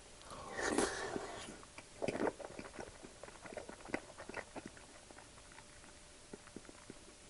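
Close-miked eating of soft scrambled egg: a loud noisy mouthful taken off a wooden spoon in the first second or so, then many small wet chewing clicks with the mouth closed, thinning out toward the end.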